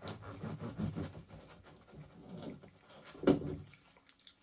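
Eating sounds, chewing and small mouth noises, with a short, louder vocal sound about three seconds in.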